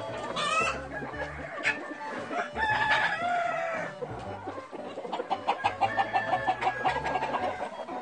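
Cheonggye chickens clucking, with a rooster crowing.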